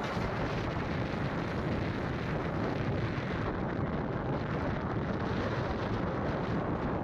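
Steady road and wind noise from a vehicle moving along the highway, with wind buffeting the microphone.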